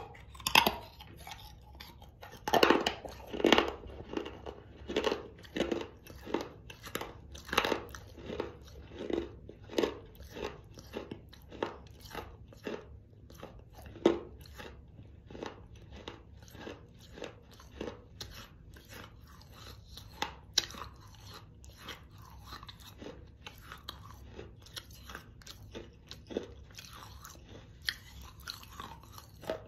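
A person biting and chewing hard, dry baked Mexican clay pieces, making loud close-up crunches about once or twice a second. The crunching is heaviest in the first ten seconds, then thins out to fewer, softer crunches of gritty chewing.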